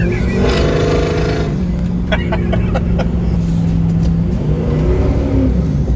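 Vehicle engine running under way, heard from inside the cab, its pitch rising about half a second in and then holding steady. A few short clicks about two seconds in.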